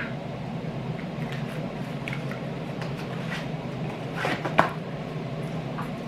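Small crinkles and clicks of a Knorr tomato bouillon cube's foil wrapper being opened by hand, with a louder double crinkle about four and a half seconds in, over a steady low hum.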